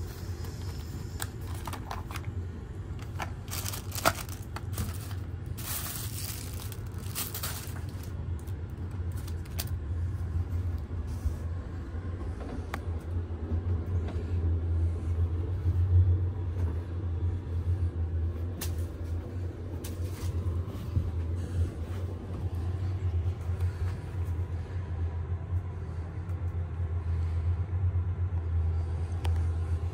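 Steady low rumble of a train, with scattered clicks and rattles in the first ten seconds and one sharp click about four seconds in; the rumble swells a little around the middle.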